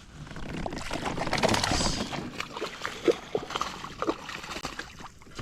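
Water splashing and sloshing beside a kayak as a small hooked bass is landed, followed by scattered knocks and rattles of handling on the boat.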